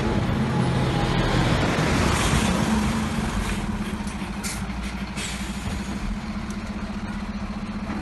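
A fire engine's engine running steadily beside the burning house: a low, evenly pulsing hum.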